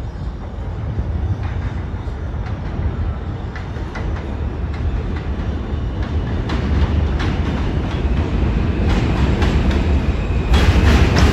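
New York City subway train rumbling along the track and coming closer, louder as it goes. Its wheels click over rail joints more and more often from about halfway in, and the sound gets sharply louder near the end.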